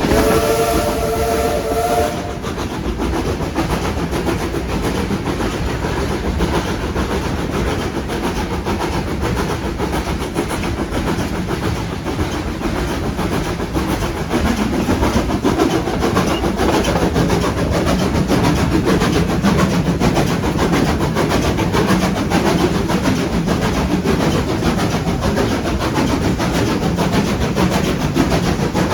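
Steam locomotive whistle sounding one short chord of several tones, then the steam train running with a steady rumble and clatter of wheels over the rails, a little louder from about halfway through.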